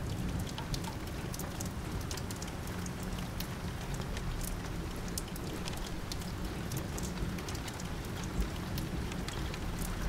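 Steady rain falling, with scattered drops ticking against a window pane.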